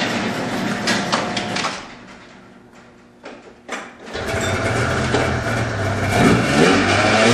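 An overhead garage door rumbles and clatters as it rolls open, then goes quiet. About four seconds in, an Arctic Cat El Tigre snowmobile's two-stroke engine catches and runs, revving unevenly; the owner diagnoses this sled as running lean.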